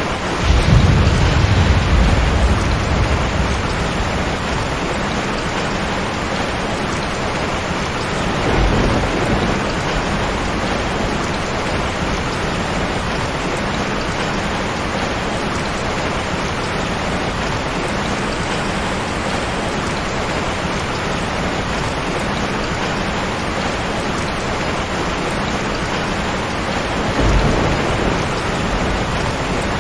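Heavy rain falling steadily, with rolls of thunder: a loud low rumble lasting a few seconds right at the start, a smaller one about nine seconds in, and another near the end.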